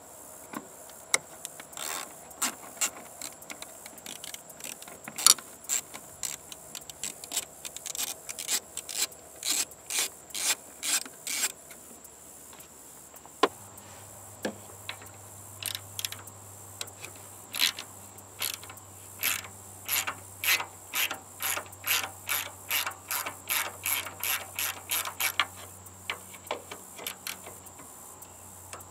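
Hand ratchet wrench clicking as it loosens the bolts that hold a car's intercooler, in runs of about two clicks a second with pauses between.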